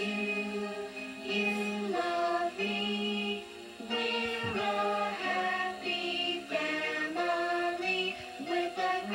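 A children's TV song: several voices singing together over backing music, played through a television's speaker.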